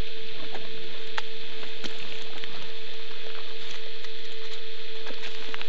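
A steady hum holding one pitch, with a few scattered sharp clicks or ticks over it.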